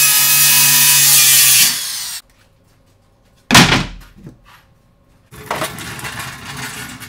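Electric circular saw cutting through OSB sheathing, then winding down about two seconds in. A single loud thump comes about halfway through, and near the end a hand pallet jack rattles as it rolls over the concrete floor.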